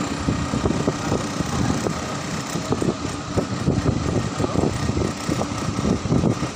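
Engine idling, a continuous low running sound with uneven pulses.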